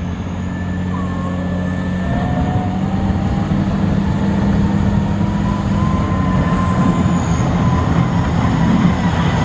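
Caterpillar 980B wheel loader's diesel engine running under load, growing steadily louder, with a faint whine that rises slowly in pitch.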